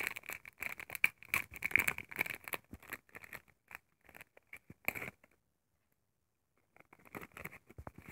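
Foil wrapper of a Pokémon booster pack crinkling and tearing as it is handled and opened by hand, with a short quiet gap about five seconds in before the rustling starts again.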